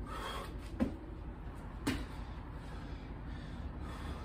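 Two short thuds about a second apart from a person doing a burpee, as hands and feet land on concrete, with a brief breath at the start.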